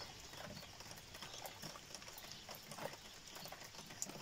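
Faint wet-weather outdoor ambience with scattered, irregular drips and ticks of water.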